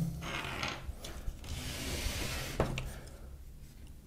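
Handling noise from a stripped-down IBM 6780 typewriter chassis being turned around on a wooden table: its plastic base rubbing and rattling, with one sharp knock about two and a half seconds in.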